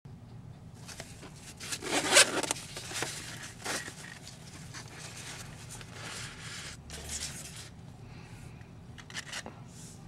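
Zipper being pulled open around a nylon zippered knife pouch, a run of rasping strokes loudest about two seconds in, followed by softer fabric rustling and handling noises as the pouch is opened and the knife taken out.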